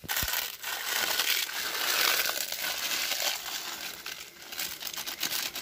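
Plastic Maggi instant-noodle packet crinkling continuously as it is squeezed and emptied by hand over a steel plate, with broken dry noodles inside.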